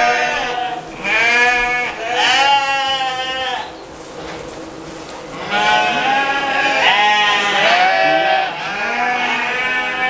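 Several sheep bleating: a string of long calls about a second each, each rising and falling in pitch. There is a quieter lull midway, then several voices overlapping.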